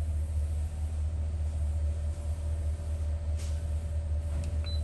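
Masterbuilt Gravity Series charcoal smoker running, with a steady low rumble and a faint steady hum from its draft fan. Its digital control panel gives a short high beep near the end as a button is pressed to set the temperature.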